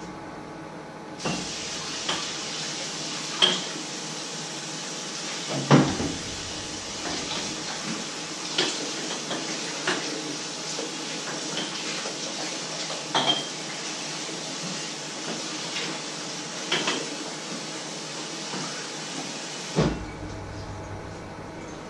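Kitchen tap running into a stainless-steel sink during dishwashing, with scattered clinks and knocks of dishes and pans. The water comes on about a second in and shuts off near the end with a knock.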